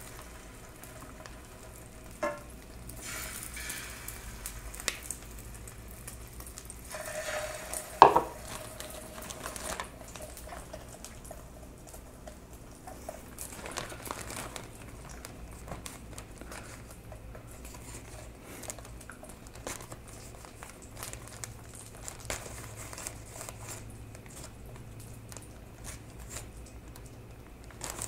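Flour-and-egg-battered oysters sizzling softly in oil in a frying pan, the hiss swelling now and then as more pieces go in. Wooden chopsticks click against the ceramic batter bowl and pan, with a sharp ringing clink about eight seconds in as the loudest sound.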